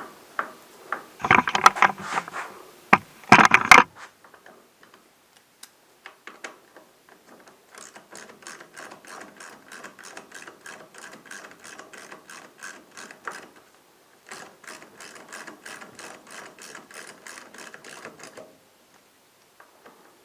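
A few loud metallic clanks, then a ratchet wrench clicking steadily at about four to five clicks a second in two runs of several seconds each, as it runs in the mounting bolts of a Ducati M1100's front brake caliper.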